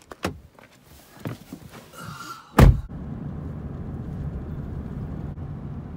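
A few soft knocks, then a pickup truck's cab door slammed shut, loud and sharp, about two and a half seconds in. It gives way to a steady low road and engine rumble inside the cab of the moving truck.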